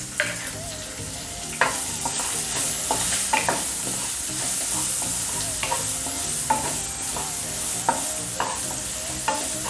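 Chopped onion frying in a hot oil tempering of whole spices and chillies in a kadhai, sizzling steadily while it is stirred. Several sharp knocks and scrapes of the spoon against the pan are spread through the stirring.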